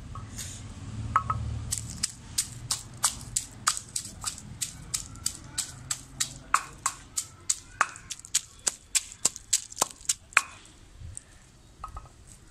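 Long wooden pestle pounding green leaves in a stone mortar, sharp strikes about three a second that start about two seconds in and stop near the end.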